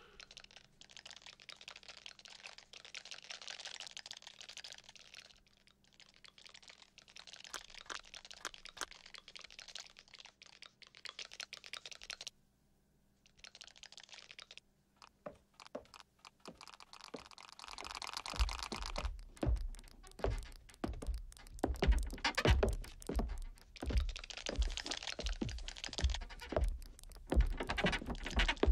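Animated-cartoon sound effects: rapid clicking and tapping over a faint hiss, a pause, then a run of heavy thumps mixed with clicks in the second half.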